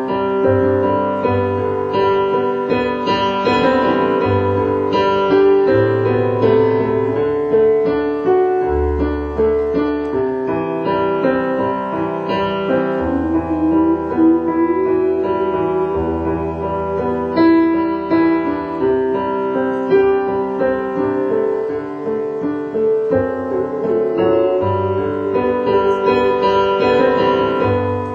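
Piano playing a slow instrumental passage of sustained chords over low bass notes, with no singing.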